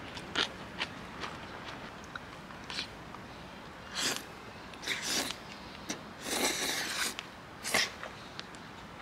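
Scattered short rustles and clicks of things being handled up close, with one longer rustle about six and a half seconds in.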